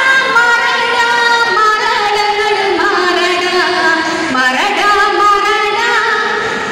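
A group of women singing a Malayalam folk song (nadan pattu) together: long held notes, with a rising swoop into a new phrase about four and a half seconds in.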